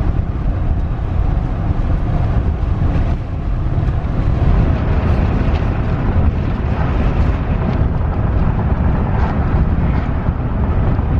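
Steady low rumble of wind and road noise inside a moving car with the windows down, with wind buffeting the microphone.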